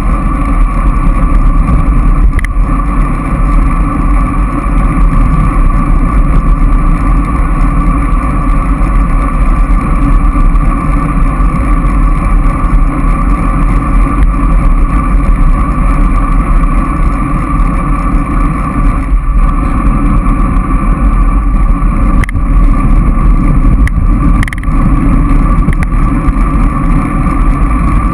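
Loud, steady wind rumble on the microphone of a handlebar-mounted GoPro action camera while cycling, with a few faint clicks.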